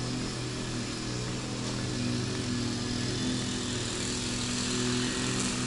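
Petrol grass trimmer engine running at a steady pitch while grass is being cut, a constant drone.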